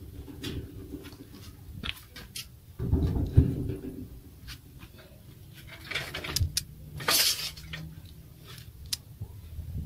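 Handling noise while working on a bicycle: scattered clicks and knocks, with clothing rubbing close to the microphone. A heavy bump comes about three seconds in, and a harsh rustling scrape about seven seconds in.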